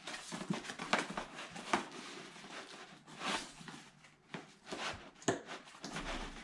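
Cardboard box and its packing being handled: rustling and scraping with scattered clicks and light knocks as the contents are lifted out. The sharpest click comes about five seconds in.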